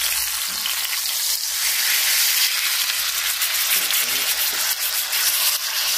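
Steaks searing in duck fat in a cast-iron skillet: a steady, even sizzle of frying fat.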